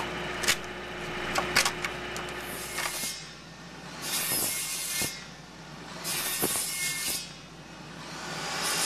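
Sidewinder circular saw running and cutting a shallow dado across a board, blade set to 3/4 inch depth. The cutting noise rises and falls several times as the saw makes repeated passes, with a few sharp clicks.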